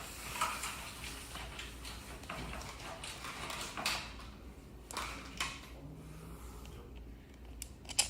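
Scattered light clicks, knocks and scrapes of metal parts being handled and shifted as the scooter's split wheel rim and hub motor are lined up for their bolts.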